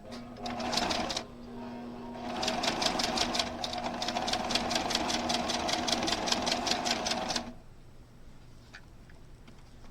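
Sewing machine stitching a scant quarter-inch seam through quilting cotton: a short run of about a second, a brief pause, then a steady run of about five seconds with rapid, even needle clicks, about six a second, that stops cleanly.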